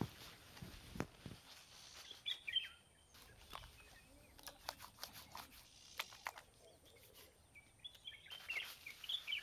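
Faint outdoor ambience with short bird chirps about two seconds in and again near the end, and a few scattered light clicks and knocks.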